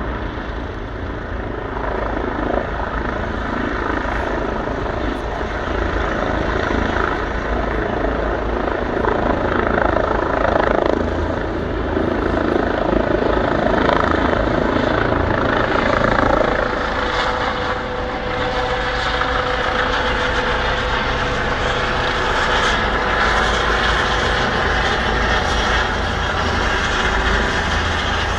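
Medical helicopter taking off from a rooftop helipad and flying overhead: steady rotor and engine noise that grows louder over the first few seconds and then holds, with a steady whine coming in about halfway through.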